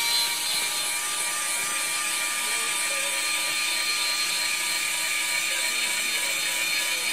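Small electric gear motor of a WPL B16 RC truck's tipper mechanism running with a steady whine as it raises the dump bed.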